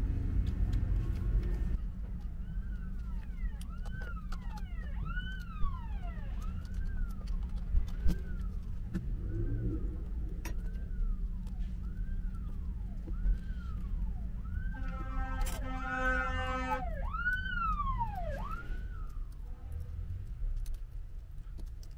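Emergency-vehicle siren wailing, each rise and fall of pitch lasting about a second, with a blaring horn-like tone held for about two seconds near the middle, over a steady low rumble.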